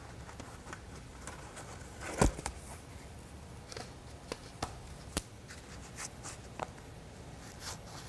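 Soft rustling and scattered small clicks of a dust mask being pulled on and adjusted, with one sharper knock a little over two seconds in. The grinder is not running.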